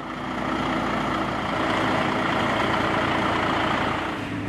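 Volvo FH heavy truck's diesel engine running steadily at a low, even speed.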